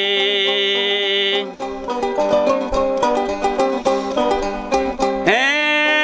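Sasando gong, the Rote tube zither with a palm-leaf resonator, plucked in a run of quick notes. Before the run a man's held, wavering sung note ends about a second and a half in. Near the end his voice swoops up into a new long note.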